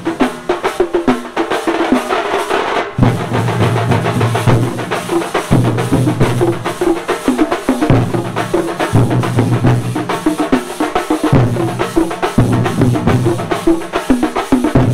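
A large drum troupe playing fast, dense strokes together. A deep low tone comes in and drops out every second or two.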